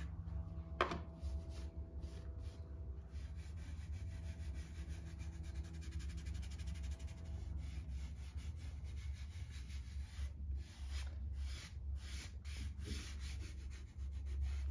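Fingers and palm rubbing dry pastel into paper, blending it in quick repeated strokes, over a steady low hum.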